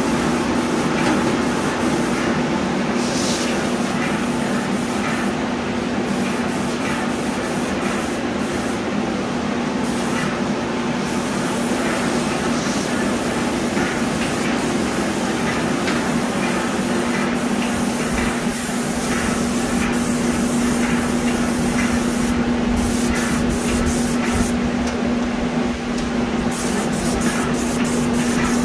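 Airless spray gun hissing as it atomises coating onto cabinet doors, with a few short breaks between passes, over a steady low hum.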